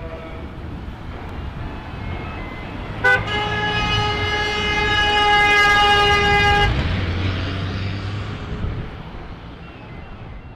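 Ford Ranger pickup's horn held in one steady blast of about three and a half seconds as the truck passes close, after a brief first toot. Its engine rumble swells and fades as it goes by, over steady road noise.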